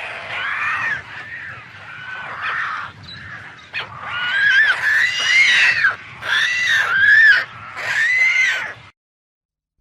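Pelican calling: a series of hoarse, pitched calls that each rise and fall, growing louder in the second half, then stopping abruptly near the end.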